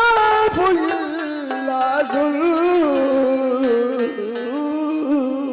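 Qawwali music: a harmonium plays sustained notes under a wordless sung line that bends and slides in pitch.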